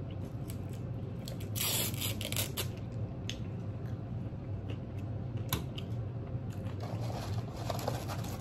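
Crinkling and rustling of fast-food packaging being handled, with scattered small clicks. The loudest crinkle comes about two seconds in. Near the end there is a softer paper rustle as fries are taken from their carton.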